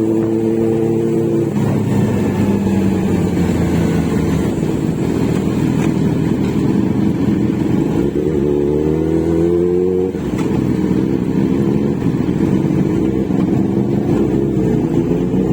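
Kawasaki Z900's inline-four engine and exhaust running under way: a steady engine note that drops about a second and a half in, climbs in pitch for a couple of seconds, then drops sharply about ten seconds in.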